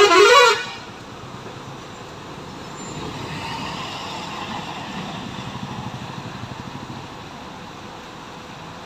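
A vehicle horn honks briefly, then motor traffic drives through the flooded road underpass and gets louder for a few seconds in the middle before settling back.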